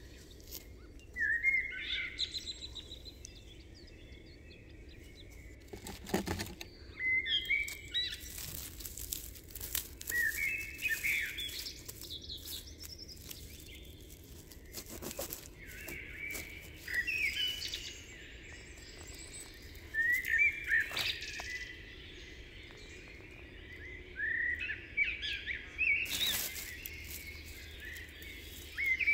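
A songbird singing short, quick chirping phrases, one every three to five seconds, with a few sharp crackles in between.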